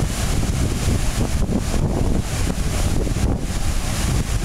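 Steady rush of the American Falls at Niagara, a thick wash of falling water, with wind buffeting the microphone in an uneven low rumble.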